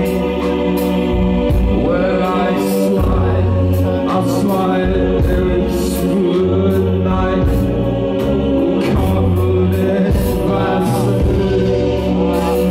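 A live band playing loud amplified music: deep held bass notes, keyboard parts and drums with regular cymbal hits, with a voice singing over it in sliding phrases.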